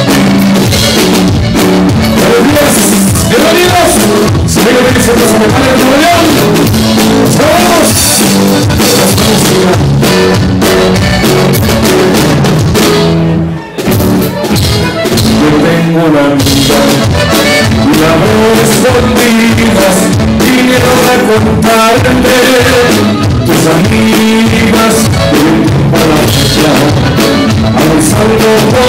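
Norteño band playing live: button accordion, bass guitar, drum kit and guitar, with a brief drop in loudness about halfway through.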